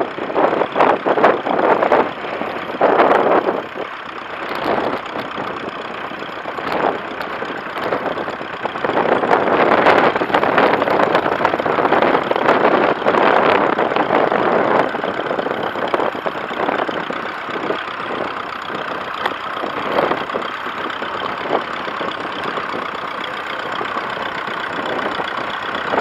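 Grey Ferguson tractor engine running steadily while pulling a plough through the soil. Gusts of strong wind buffet the microphone, surging loudest about a second in and again from about nine to fifteen seconds.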